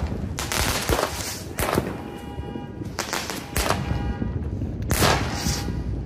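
Aerial fireworks launching and bursting overhead: a string of sharp bangs, spaced about half a second to a second and a half apart. A steady pitched tone sounds between some of the bangs.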